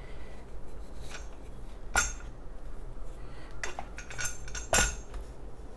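Sharp clicks and knocks of a black plastic cup being pressed back over a tricycle's steel steering tube, a handful in all, the loudest about two seconds in and near the end.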